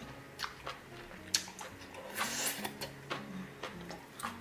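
A person eating close to the microphone: slurping noodles and chewing, with scattered small wet mouth clicks.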